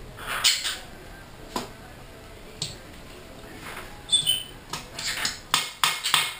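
Green-cheeked conure tapping: a few single taps, then a quickening run of sharp taps, about three or four a second, from about five seconds in. Two or three short high chirps come just after four seconds in.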